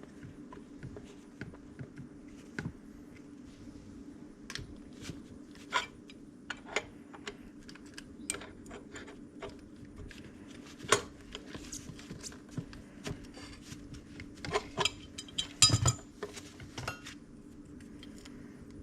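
Scattered metallic clicks and clinks of small fittings and tools being handled while an air adapter is fitted to a spray gun, over a steady low hum. A quick run of louder clinks comes about three-quarters through.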